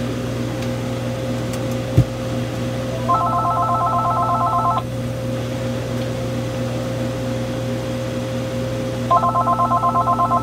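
Panasonic KX-TGF570 cordless phone set ringing for an incoming call: two bursts of a fast warbling electronic ring, each under two seconds, about six seconds apart. A single sharp click comes about two seconds in, and a steady low hum runs underneath.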